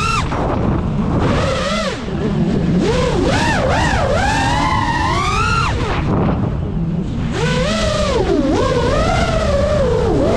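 Five-inch FPV freestyle quadcopter's motors whining, the pitch sweeping up and down constantly with the throttle, over a heavy rumble of wind on the onboard camera. The whine falls away twice, briefly near the start and again past the middle, as the throttle is cut during flips and dives.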